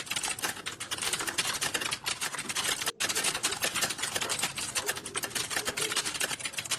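Fast, continuous typing on a computer keyboard: rapid keystrokes, several a second, with a brief break about three seconds in.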